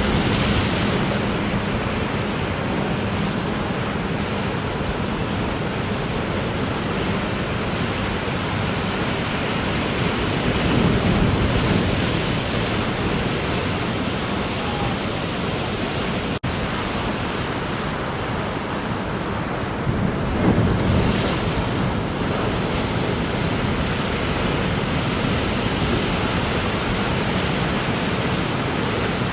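Ocean surf breaking, with wind rumbling on the microphone. The surf swells louder around ten seconds in and again around twenty seconds in.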